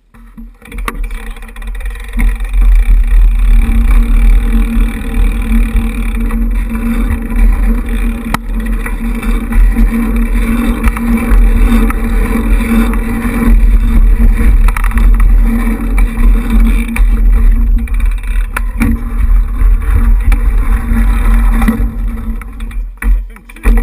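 Wind buffeting the microphone and tyres rumbling on asphalt as a BMX bike rides a paved track, building up over the first couple of seconds, with a few sharp knocks over bumps.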